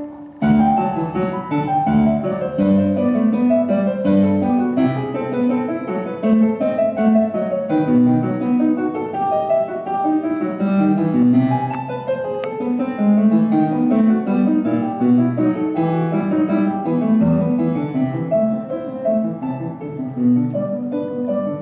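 Piano music, a dense flow of notes, with a brief break just after the start.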